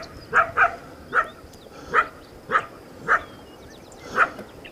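A dog barking: about eight short, separate barks at uneven intervals, roughly one every half second to a second.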